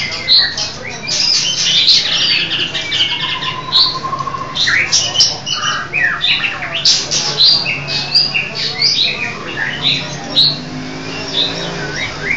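Caged songbirds singing and calling, a dense overlapping mix of chirps, whistles and trills from more than one bird, over a faint low hum.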